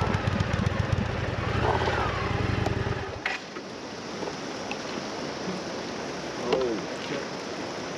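Wind buffeting the microphone over a motorcycle's low engine rumble while riding. About three seconds in the low rumble cuts off, leaving a quieter, steady rushing noise.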